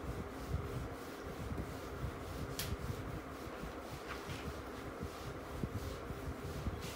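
Whiteboard eraser rubbing across the board in soft irregular strokes, over a steady fan hum, with two light clicks in the middle.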